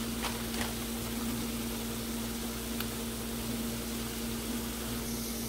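A steady low hum, like a running motor or appliance, over a faint even hiss of the greens cooking in the pan, with a couple of light clicks about half a second in.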